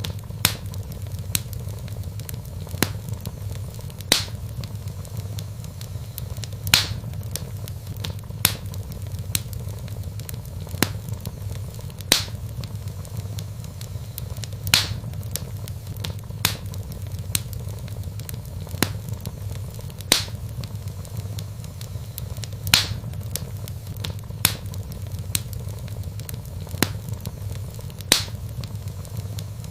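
Wood fire burning in a fireplace: irregular crackles and sharp pops from the logs, a louder snap every few seconds, over a steady low rumble.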